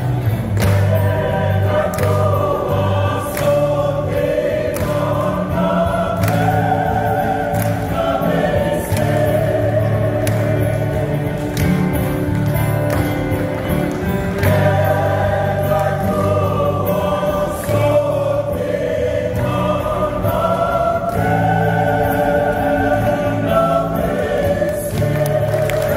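Choir singing in several parts, voices moving together in harmony with a strong low part underneath.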